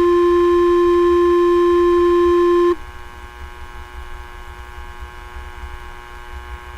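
Two-tone sequential fire paging tone heard over a scanner radio: the long second tone of the page, one steady pitch held for nearly three seconds, then cut off, leaving the open channel's steady hum and hiss. It is the alert tone that sets off the firefighters' pagers for a call-out.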